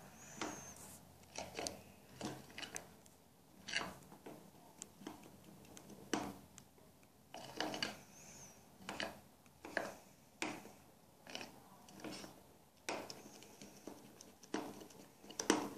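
A hand mixing flour into thick cake batter in a plastic bowl: faint rubbing strokes, roughly one a second.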